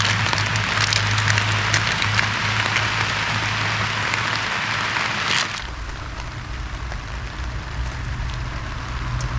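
Rain hissing steadily on a tarp, with scattered drop ticks. About five and a half seconds in, the hiss drops away suddenly, leaving a low rumble.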